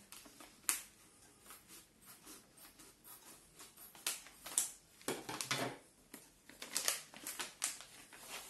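Scissors snipping through a plastic packet, with the plastic crinkling and rustling as it is cut and handled: an irregular run of sharp clicks and crackles.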